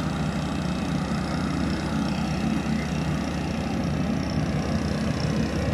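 An engine idling steadily, a low even running note with no change in speed.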